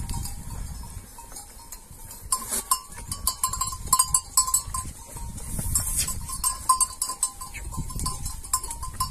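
A flock of sheep moving and grazing, with small bells clinking irregularly over a low rumble.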